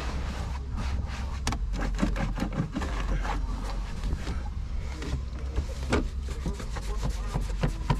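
Microfiber cloth rubbing and wiping over a dusty plastic van dashboard and steering wheel cover, with many short scrapes and clicks throughout.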